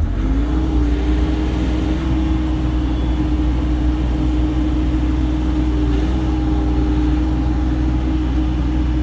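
Bobcat E35 mini excavator's diesel engine speeding up from idle and then running steadily at higher speed, a deep rumble with a steady whine over it.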